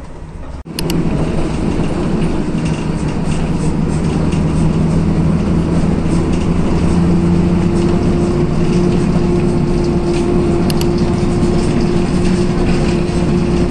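Passenger train running, heard from inside the carriage: a loud, steady rumble with a droning hum, starting abruptly under a second in.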